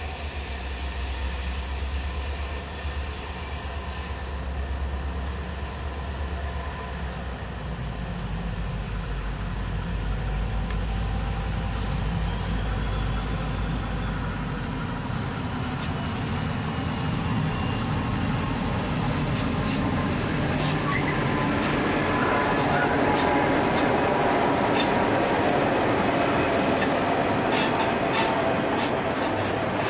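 A broad gauge freight train hauled by three diesel locomotives passing close by: first the low rumble of the locomotive engines with a high whine that falls slowly in pitch, then the container wagons rolling past with sharp clicks of wheels over rail joints, growing louder.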